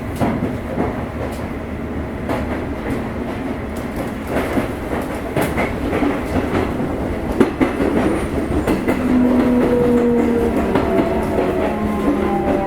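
Sotetsu 8000 series train with GTO-VVVF inverter, heard from inside a motor car: steady rumble of the running train with wheels clacking over rail joints. About nine seconds in, the inverter and traction motor tones come in and near the end slide slowly down in pitch, typical of the train braking on the approach to a station.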